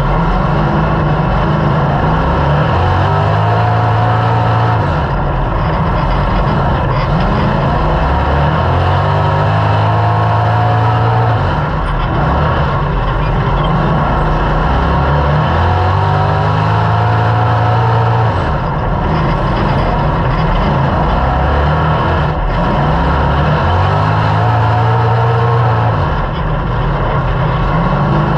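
Dirt-track stock car engine heard from inside the cockpit, running hard at racing speed. Its pitch climbs and falls away about every six to seven seconds, the throttle going on down each straight and lifting off for each turn of the oval.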